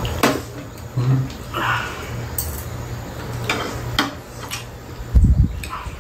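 Mealtime sounds: metal chopsticks clicking against plates and food being chewed, over a steady low hum. Heavy low thumps come a little after five seconds in.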